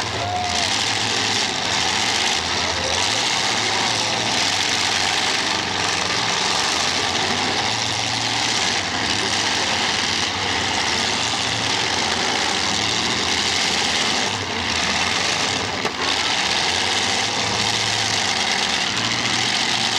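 Several race car engines running together, a steady dense din with no single engine standing out.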